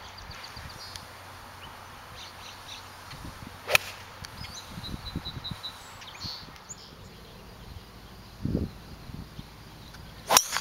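Golf club striking a ball off the tee: a sharp crack about a third of the way in, and a second tee shot's crack near the end. Faint bird chirps between the two.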